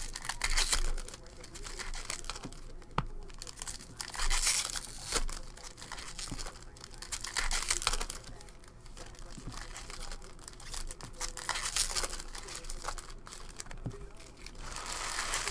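Foil wrapper of a hockey card pack crinkling and tearing open by hand, then trading cards being handled and slid against each other. The rustling comes in bursts every few seconds, with small sharp clicks between them.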